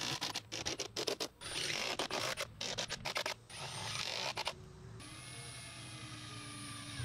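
Cordless drill driving screws into plywood siding in short, stop-start bursts. After that comes a quieter steady hum.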